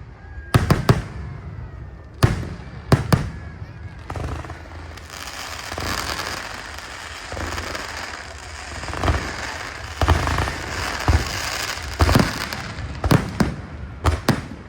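Aerial fireworks display: shells bursting with sharp bangs, then from about four seconds in a long stretch of dense crackling with booms inside it, and a quick run of bangs near the end.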